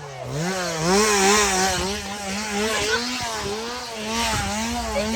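Small two-stroke chainsaw engine revving over and over, its pitch rising and falling about twice a second.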